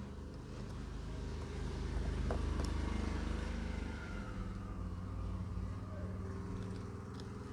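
A motor vehicle's engine rumbling past, swelling to its loudest about two to four seconds in and then easing off.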